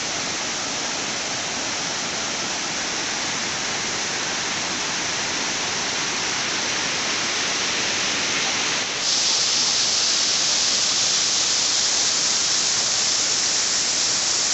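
Waterfall: the steady, loud noise of falling water, with no separate sounds in it. About nine seconds in it jumps louder and hissier.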